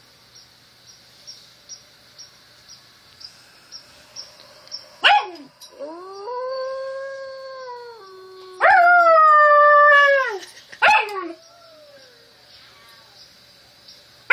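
Alaskan Malamute puppy howling: a long howl about five seconds in, then a louder one about nine seconds in that falls away in pitch at its end, followed by a short yip.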